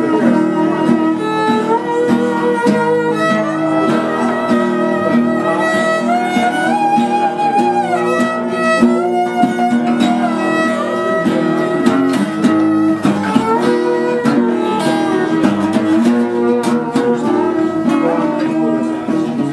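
Violin playing a melody of held notes over a strummed acoustic guitar, with no singing.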